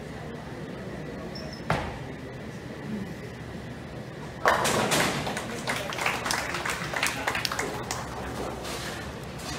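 Tenpin bowling ball landing on the lane with a single thud. About three seconds later it crashes into the pins, and the pins clatter against each other and the pin deck for a few seconds. The pin crash is the loudest sound.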